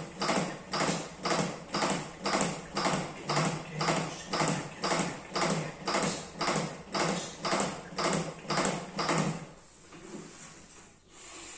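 CPR training manikin's chest being pressed in steady compressions, a regular rhythm of about two presses a second that stops about nine and a half seconds in.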